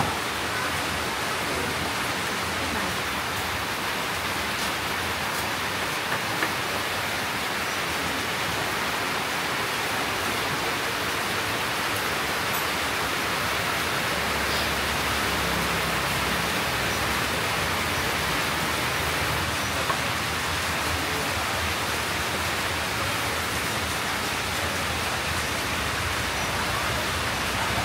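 A steady, even rushing noise with no pitch or rhythm, broken only by two faint ticks.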